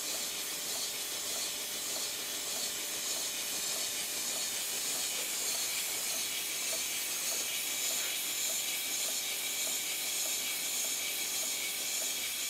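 Compressed air hissing steadily through a 5-inch gauge Stirling Single model locomotive chassis as it runs in reverse on air, its driving wheels and valve gear turning, with faint quick beats under the hiss.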